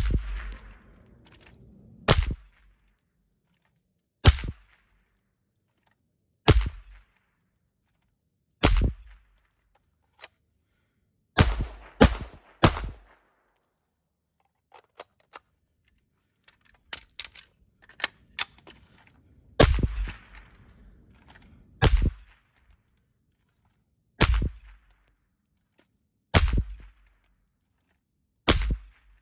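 Suppressed KP9 9mm carbine firing 147-grain subsonic rounds: single shots about every two seconds, with a quick string of three near the middle and a pause after it, about thirteen shots in all. Light clinks can be heard in the pause.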